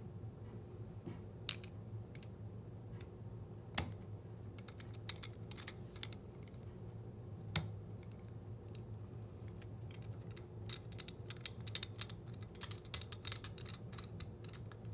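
Small metal clicks and ticks from a screwdriver and screws being driven into a small electric motor's housing: a few sharp single clicks, then a quicker run of clicking near the end.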